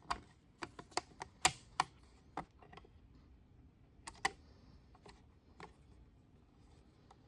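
Sharp plastic clicks and light knocks of a 3D-printed case body being set onto its front bezel and screwed down with a small screwdriver: a quick run of about ten in the first three seconds, a close pair about four seconds in, then a few fainter ones.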